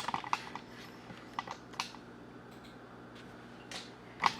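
Scattered light clicks and taps of small craft pieces being handled on a table: a quick cluster in the first half-second, a few more around a second and a half in, and a louder tap near the end.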